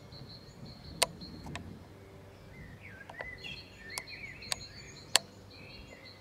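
Outdoor ambience: a steady high chirping, about five pulses a second, typical of a field cricket, with a bird singing short warbled phrases from about two and a half seconds in until near the end, and a few sharp clicks.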